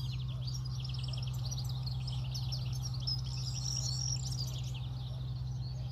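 European goldfinches singing, a rapid continuous twittering of several birds answering one another, over a steady low hum.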